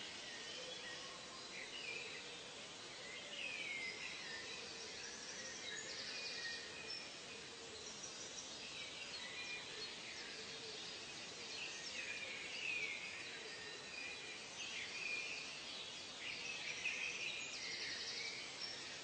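Forest ambience: many birds calling and chirping over a steady background hiss, with a short buzzy trill about six seconds in and another near the end.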